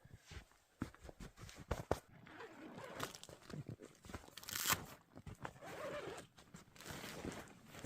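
Tent being pitched: nylon fabric rustling and tearing noises, with irregular clicks and crunches from poles and gear being handled.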